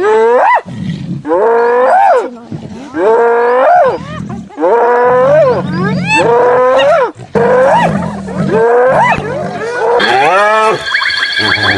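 Spotted hyenas calling over and over, each loud call gliding up in pitch and then down, about one a second. Near the end a different sound comes in, with steady high tones and quick repeated strokes.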